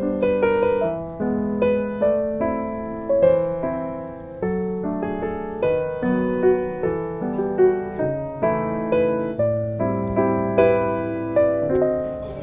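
Soft background piano music: a gentle melody of single struck notes over sustained chords, each note fading after it sounds.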